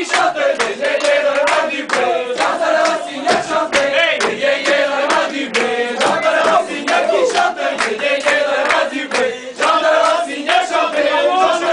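A crowd of people singing a rhythmic song together, with sharp regular beats kept in time, about three a second.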